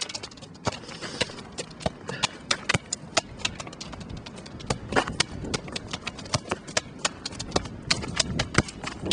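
Quick, irregular clicks and knocks, several a second, of shoes and a soccer ball being kicked and dribbled on an asphalt driveway.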